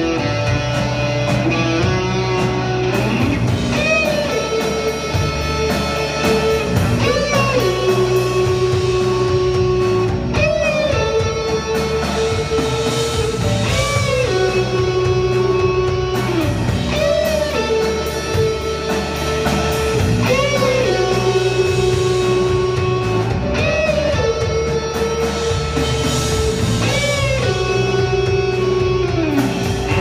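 Live instrumental rock from a three-piece band: electric guitar, bass guitar and drum kit playing through amplifiers. The guitar repeats a phrase with a note bent up and back down about every three and a half seconds.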